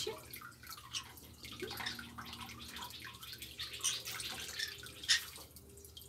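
Tap water running onto hands and wet parrots in a stainless steel sink, splashing and dripping unevenly.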